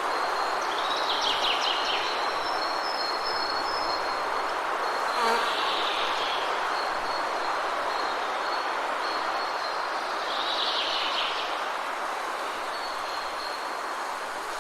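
Steady rushing background noise with a thin, steady high-pitched buzz, and two short bursts of bird chirping: one about a second in, one near ten seconds. A single faint click comes about five seconds in.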